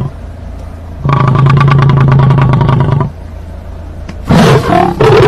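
A horn blown in long, steady, buzzy blasts: one of about two seconds, then a short wavering note and another long blast near the end.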